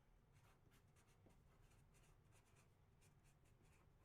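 Near silence with faint, irregular scratching sounds.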